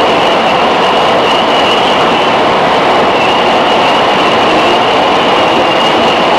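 Interior running noise of a JR 211 series electric train's motor car: a loud, steady rumble and rush of the train rolling along the track, with a thin, steady high-pitched squeal running through it.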